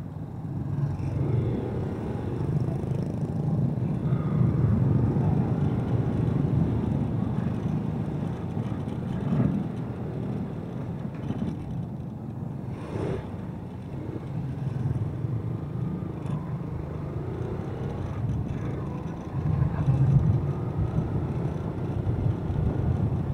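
Yamaha SZ motorcycle's single-cylinder engine running at low road speed, mixed with road and wind noise. The sound swells louder a few times as the throttle is opened.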